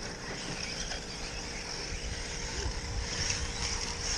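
Radio-controlled short-course trucks running on a dirt track, a steady high whine with low rumble underneath.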